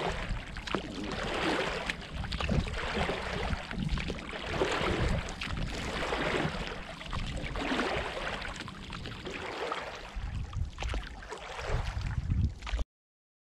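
Water sloshing and splashing around an inflatable rowing boat as it is rowed, swelling with each oar stroke, with wind rumbling on the microphone. The sound cuts off suddenly near the end.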